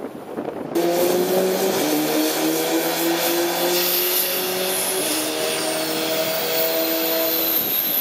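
Apache attack helicopter's turboshaft engines running on the ground: a steady turbine whine with several held tones and a very high tone that slowly falls. It starts abruptly about a second in, after quieter wind noise on the microphone.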